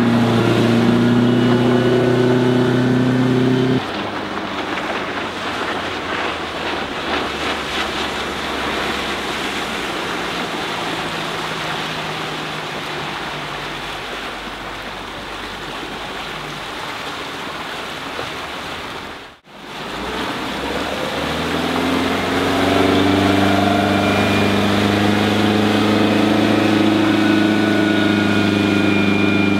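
Bayliner 192's 3.0-litre 135 hp MerCruiser sterndrive engine running at speed on the water, heard from the shore. Its note drops away about four seconds in, leaving mostly a rushing noise of water and wind. After a brief break the engine is heard climbing and then holding a steady, strong note as the boat powers up again.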